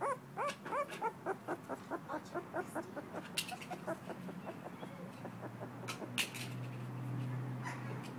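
Two-week-old pit bull terrier puppy squeaking in a fast run of short, high whimpers, about five a second, that fade out about halfway through. Later a low steady hum and a couple of sharp clicks.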